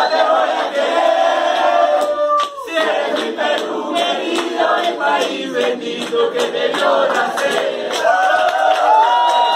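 A roomful of people singing together in unison, with long held notes that slide off at their ends.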